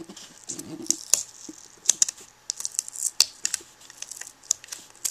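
Fingers picking and scraping at sticky label residue on a plastic laptop palm rest: an irregular string of sharp clicks and scratches.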